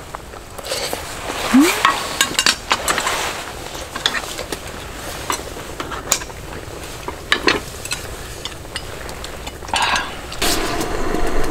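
Chopsticks and tongs clinking and scraping against stainless-steel bowls and a cooking pot as food is served out, in scattered light taps. A steadier rushing noise comes in near the end.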